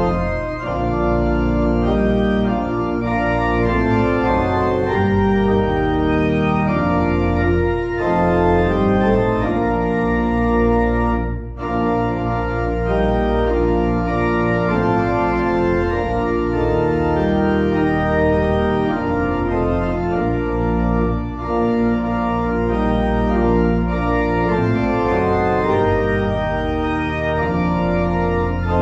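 Organ music playing sustained, changing chords over a deep bass line, with two brief breaks between phrases.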